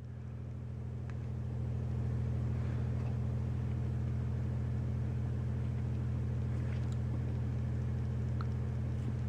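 A steady low electrical hum with a buzzy, mains-like tone that swells over the first couple of seconds and then holds level.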